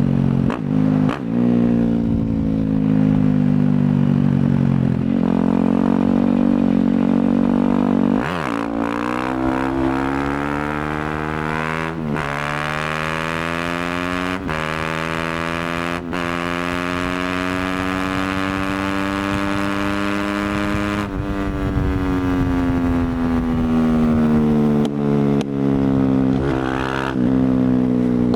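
Yamaha WR250F's single-cylinder four-stroke engine through an FMF aftermarket exhaust, pulling up through the gears with sharp pitch drops at shifts about 8, 12 and 14 seconds in. It then holds high revs, falls away as the throttle closes around 21 seconds, and picks up again near the end.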